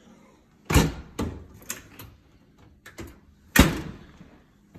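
Doors of a Whirlpool Gold built-in microwave and wall oven being opened and shut: a series of clunks and knocks, the loudest just under a second in and about three and a half seconds in.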